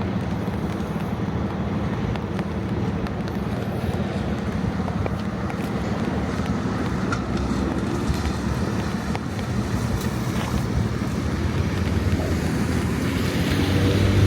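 Steady passing road traffic with a low engine hum, mixed with wind on the microphone. Near the end a vehicle grows louder as its engine note rises.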